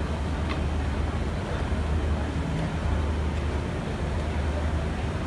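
Steady low hum under an even background hiss: the constant noise of the stage venue, with one faint click about half a second in.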